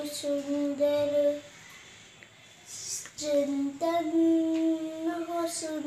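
A young girl singing unaccompanied in long held notes, pausing for about a second and a half before going on.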